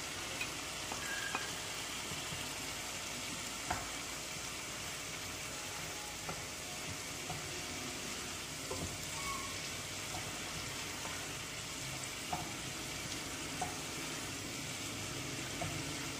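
Shredded cabbage sizzling steadily in oil in a nonstick pan as a wooden spatula stirs it, with a few light knocks of the spatula against the pan.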